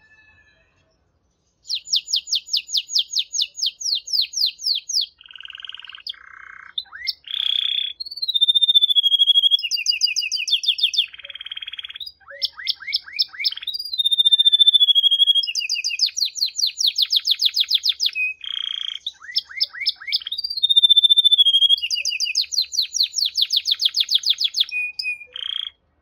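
Male domestic canary singing one long, varied song of rapid trills and rolls with clear whistled notes gliding between them. The song begins about a second and a half in and stops just before the end.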